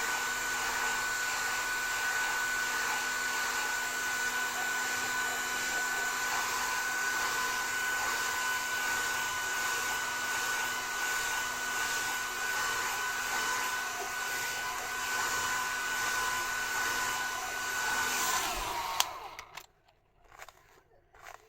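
Hair dryer running at a steady blow with a high whine. Near the end it is switched off: the whine sags and the sound cuts out with a click.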